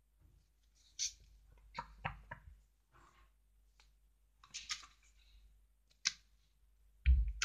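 Plastic sticker packet and paper sheets being handled and opened: a series of short crinkles and clicks, the loudest near the end.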